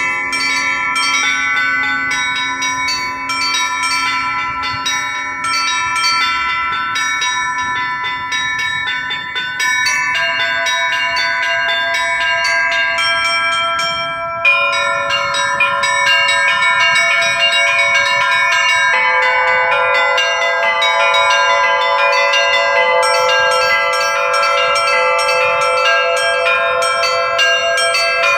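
Russian Orthodox church bell ringing (zvon) on a LITEX-cast bell set: small bells struck in quick succession over the longer-sounding tones of larger bells. About halfway through the ringing changes abruptly to a new, fuller set of tones, with lower bells sounding.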